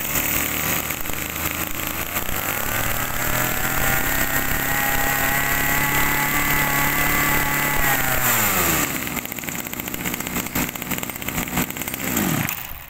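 Zenoah Komatsu 26 cc two-stroke brush cutter engine running. It revs up over a few seconds, holds high, and drops back to idle about eight seconds in. Near the end it gives a short blip, then shuts off.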